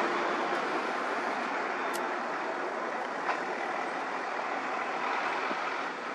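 Toyota HiAce van driving past and away along the road, its tyre and engine noise slowly fading. Two faint clicks about two and three seconds in.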